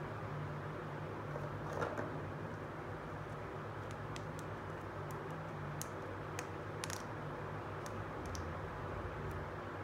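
Small hard-plastic toy pieces handled by hand: scattered light clicks and taps, a few louder ones about two seconds in and around six to seven seconds, over a steady hiss and low hum.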